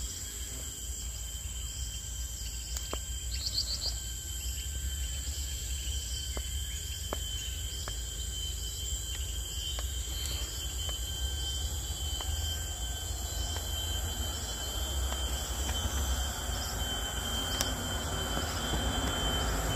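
Steady high-pitched drone of forest insects, two unbroken tones, with a short bird chirp about three seconds in and a constant low rumble beneath.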